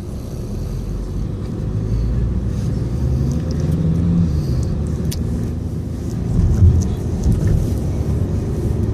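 Baby snoring in her sleep over a steady low rumble.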